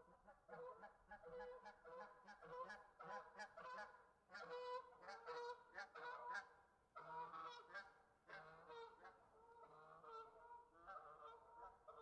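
A group of geese honking, many calls following and overlapping one another without a break.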